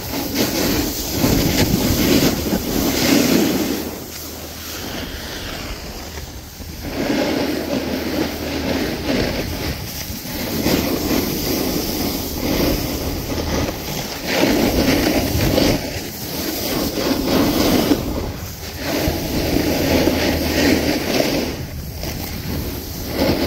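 Snowboard sliding down a groomed piste, its edge scraping the packed snow in swells that rise and fall with each turn, with wind rushing over the microphone.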